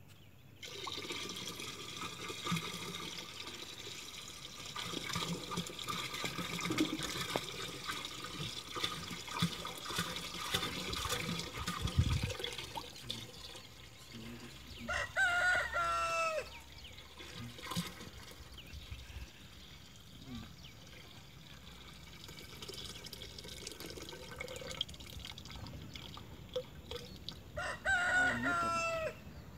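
Toddy (palm wine) poured from a plastic jerry can into a plastic drum: a steady stream that is louder over the first dozen seconds and softer later. A rooster crows twice, about halfway through and again near the end.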